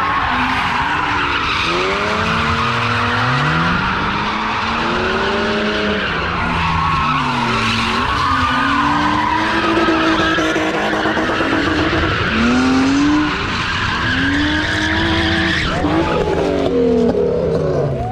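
BMW E36 drift cars sliding around a concrete lot, their engines revving up and down again and again with tyres screeching continuously.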